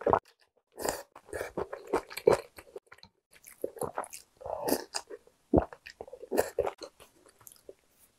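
Close-miked eating sounds: a spoonful of soup sipped, then chewing in irregular wet bursts, with a louder one about five and a half seconds in.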